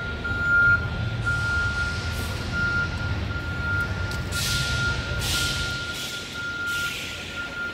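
A vehicle's reversing alarm beeping over a low engine rumble, with three short bursts of hiss in the second half.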